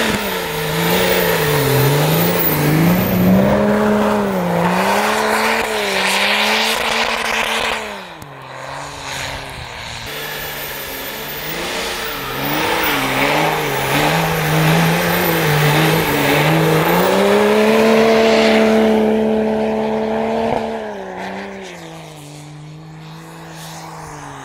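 Off-road 4x4's engine revving up and down over and over as it ploughs through deep snow, the revs held high for a few seconds past the middle. The engine drops away about a third of the way in and again near the end.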